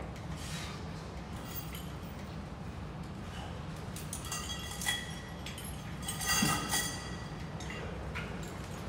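Metal gym weight plates clinking with a brief ring, once about five seconds in and in a short cluster a second or two later, over a steady low background hum.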